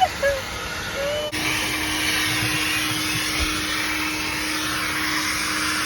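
Self-service car wash equipment running: a steady hiss with a constant low hum that starts abruptly about a second in.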